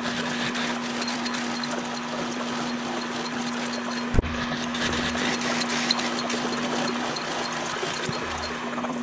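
Milling machine running a twist drill down through a clamped metal plate: a steady motor hum under the hiss and chatter of the cut. A single sharp click about four seconds in.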